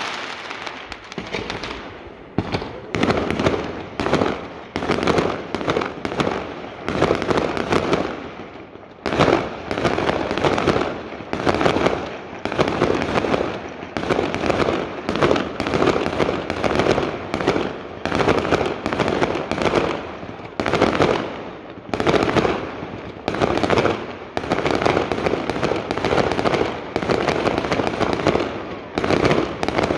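Daytime fireworks going off in rapid, near-continuous volleys of sharp bangs and crackles, with brief lulls about two and eight seconds in.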